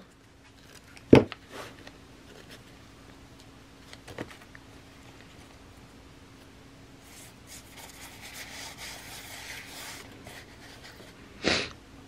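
Quiet tabletop handling of paper: a sharp click about a second in, then a few seconds of soft rubbing as crinkled gold foil paper is smoothed down by hand onto a glued page, and another short noise near the end.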